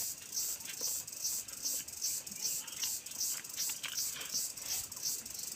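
Eating by hand: fingers mixing rice and curry on a metal plate, with chewing and lip smacks heard as faint short clicks. Under it runs a steady high-pitched pulsing, about three pulses a second.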